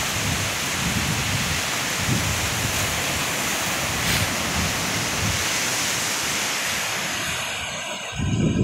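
Sea surf breaking and washing up a sand beach, a steady rushing hiss, with wind buffeting the microphone in irregular low rumbles. A strong gust hits the microphone near the end.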